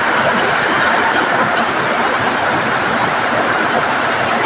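Steady heavy rain falling on corrugated metal roofs, an even, unbroken hiss with no single drops standing out.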